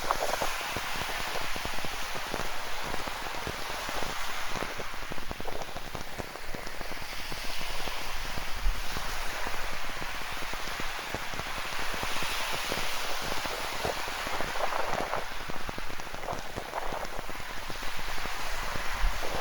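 Steady rain falling with many close drop patters, over ocean surf that swells and fades on the shore.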